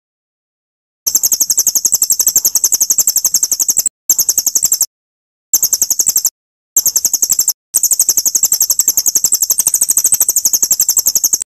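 Cililin song for a murai batu masteran: a very high, rapid trill of about ten notes a second, sung in five long runs with short breaks between them.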